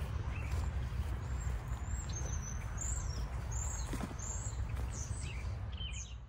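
Birds chirping in short, high, repeated calls over a steady low rumble, with the sound fading near the end.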